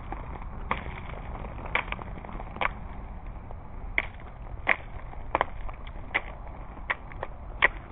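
Ice-laden tree branches cracking in an ice storm: about a dozen sharp snaps at irregular intervals, with ice breaking off and falling, over a steady low background noise.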